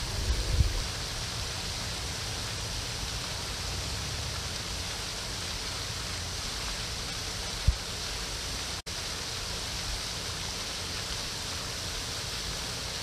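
Steady, even rushing-water hiss from the pond's spray fountain, with one sharp thump a little past the middle.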